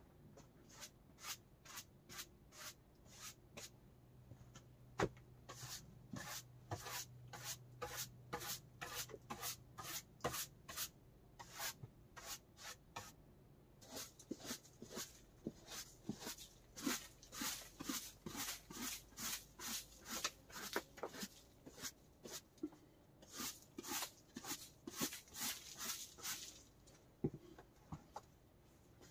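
Broom or brush sweeping the floor in quick, even strokes, about two or three a second.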